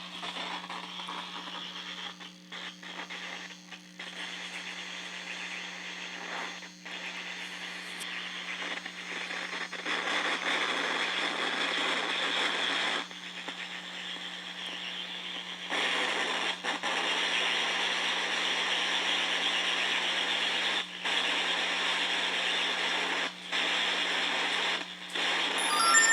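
Crackly electronic static over a steady low hum, picked up by an improvised electromagnetic-field pickup. The static gets louder about ten seconds in and cuts out and returns several times. The uploader takes it for incoming radio-frequency pulses.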